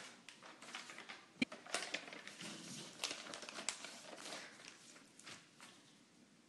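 Sheets of notepaper rustling and crinkling as they are handled, with a sharp tap about a second and a half in.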